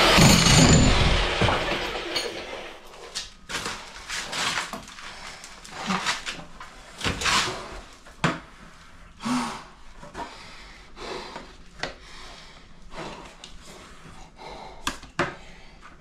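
Electric jackhammer breaking out brickwork, stopping and dying away in the first second or two. Then scattered short knocks and rustles, about one a second.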